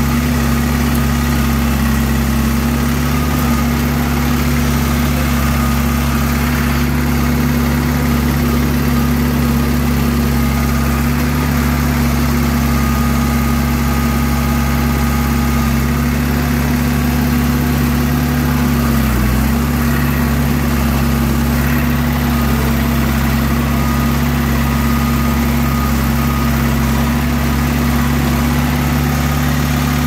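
John Deere 450 crawler's engine idling steadily, with one brief dip in pitch and back about two-thirds of the way through.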